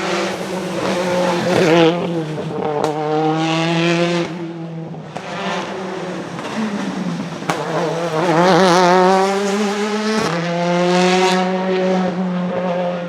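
Ford Focus WRC rally car's turbocharged 2-litre four-cylinder engine pulling hard. The revs climb and drop several times as it changes up through the gears, with a few sharp cracks along the way.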